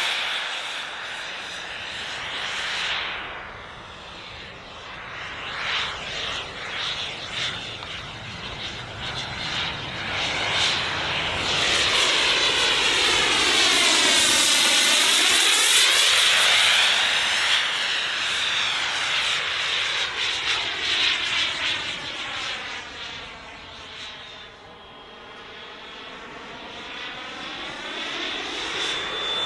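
JetCat P20SX miniature kerosene turbine in a foam MB-339 model jet, a high-pitched whine over a jet rush, swelling and fading as the model flies past. It is loudest about halfway through and dips twice when the jet is farther away.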